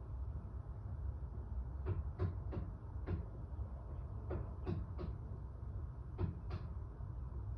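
Sharp knocks or clicks in small irregular groups of two to four, over a steady low rumble.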